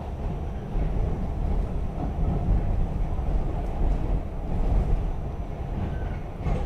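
R46 subway train running along the track, heard from aboard: a steady low rumble of wheels and running gear that gets a little louder about a second in.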